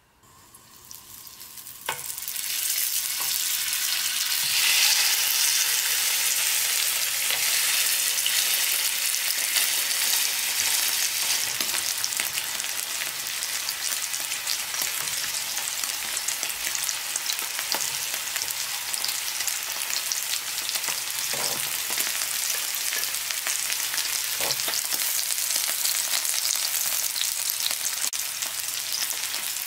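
Beef sirloin steak sizzling in an oiled grill pan. The sizzle builds over the first second or two, jumps up sharply about two seconds in, then holds steady.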